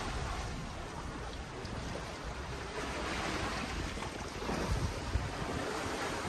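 Sea waves washing on the shore: a steady rushing surf that swells about halfway through.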